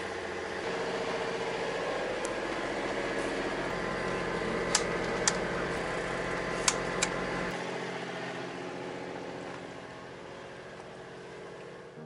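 Sailing yacht's engine running steadily under way, with four sharp clicks in the middle as switches on the electrical panel are flipped to turn off the navigation lights. The engine sound drops lower and quieter in the second half.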